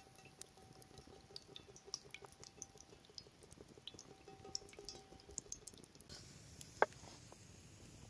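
Oil poured in a thin stream into a cast-iron frying pan already holding oil, a faint steady trickling tone that stops about five and a half seconds in, over small scattered crackles from the wood fire beneath. A single sharp click comes about a second before the end.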